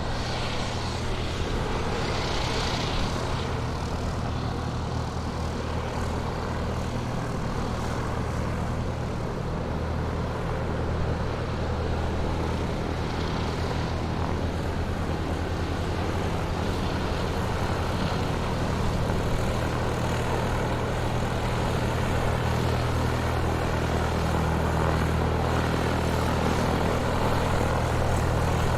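Airplane engines running steadily while the aircraft taxis, a continuous low drone with a broad hiss above it, growing a little louder near the end.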